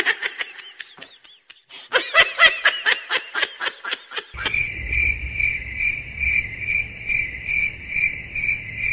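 High-pitched giggling laughter in quick runs. About four seconds in it gives way to cricket chirping that starts abruptly: a steady high chirp pulsing two to three times a second over a low hum.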